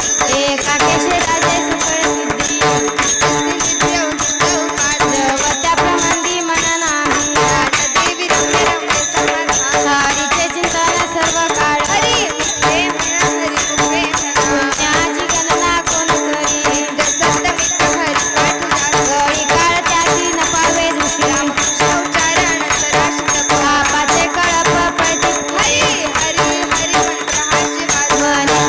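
Devotional bhajan music: sustained steady tones under a fast, even beat of jingling, rattling percussion.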